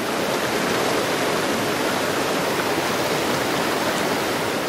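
A rain-swollen waterfall pouring into churning whitewater, a loud steady rush of falling water.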